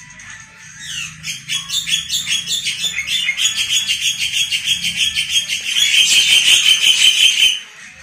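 Caged songbird singing a fast run of high repeated notes that grows louder and stops abruptly near the end.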